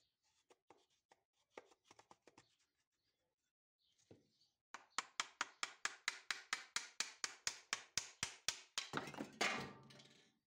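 Quick, even metal-on-metal taps, about six or seven a second, as a flat screwdriver is driven against the metal strap of an old hand drill's wooden crank handle to work it off the crank arm. Near the end the taps give way to a brief scraping clatter as the handle comes free. A few light clicks of handling come first.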